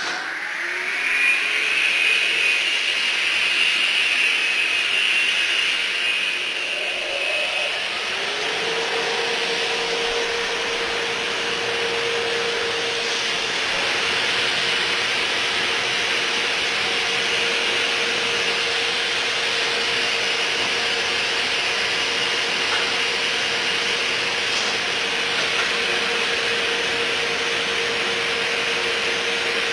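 CNC fabrication machine's saw motor, driving a 22-inch blade from a variable frequency drive, spinning up with a soft start: a rising whine over the first second or so, then running steadily with a whirring hiss. About eight seconds in, a second steady tone joins as a drilling spindle starts on the part.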